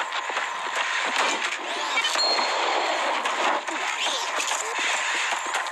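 A hockey stick striking a humanoid robot's metal body: a clang about two seconds in, followed by a short high ring, with lighter knocks around it.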